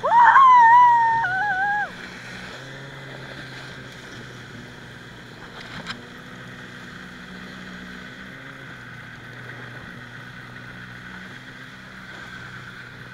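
A loud, high-pitched squeal from a rider, sliding up and held for about two seconds with a drop in pitch partway, then cut off. After it, the towing snowmobile's engine drones steadily with wind and snow rushing past.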